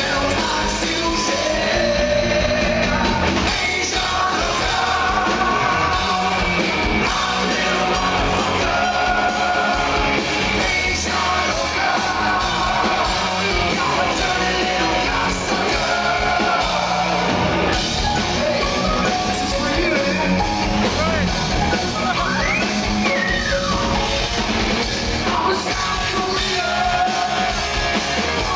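Glam metal band playing live, with the lead singer singing and yelling into the microphone over electric guitar and drums.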